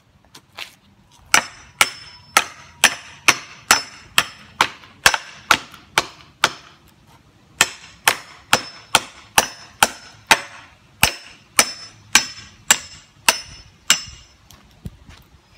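Hatchet striking a wooden 4x4 post again and again, about two sharp blows a second with a slight ring after each and a couple of brief breaks. A few light taps come before the chopping gets going.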